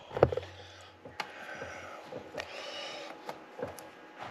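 Faint rustling and scattered small clicks of hands handling rubber hoses while reconnecting the fuel line on a golf cart engine.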